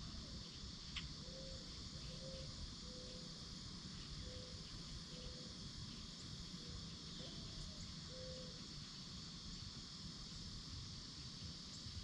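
Steady high-pitched insect chorus. A run of short low notes repeats roughly once a second in the background, and there is a single faint click about a second in.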